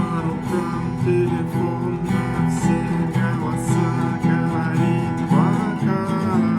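Acoustic guitar strummed in a steady rhythm, chords sounding with frequent sharp strokes across the strings.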